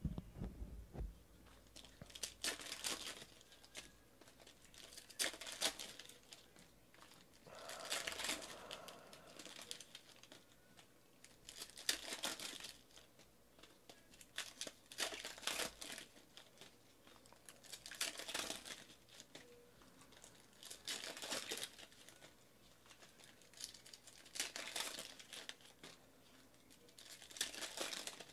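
Plastic-foil trading card pack wrappers being torn open and crinkled. The rustling comes in short bursts about every three seconds as pack after pack is ripped.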